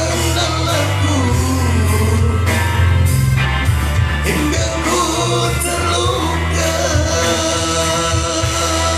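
Music: a voice singing a melody over a band backing with heavy bass and a steady drum beat.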